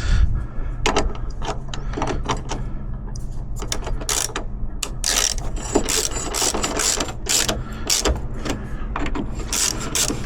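Hand ratchet wrench clicking in irregular runs as a bolt is turned.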